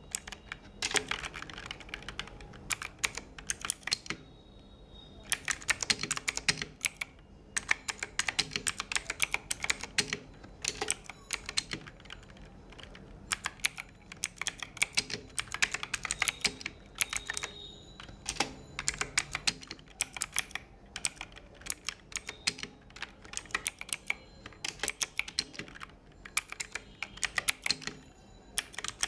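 Typing on a Bajeal K100 mechanical keyboard with Outemu blue switches: fast runs of sharp keystroke clicks with short pauses between runs.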